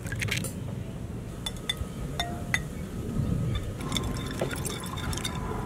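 A steel kitchen knife cracking eggs and clinking against a glass bowl as the eggs are worked in it: a scatter of sharp clinks and taps, busier in the second half.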